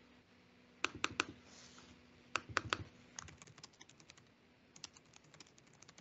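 Typing on a computer keyboard: two quick groups of three louder keystrokes, then a run of lighter, faster key taps, over a faint steady hum.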